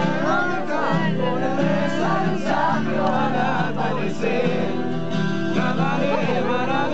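People singing a song together to a strummed acoustic guitar, the voices and chords going on without a break.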